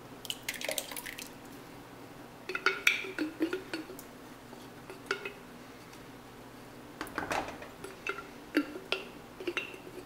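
Wooden spoon scraping and knocking inside a glass jar and against a stainless steel pot as thick marinara sauce is scraped out of the jar. It comes in several short clusters of knocks and scrapes, with soft wet squishing from the sauce.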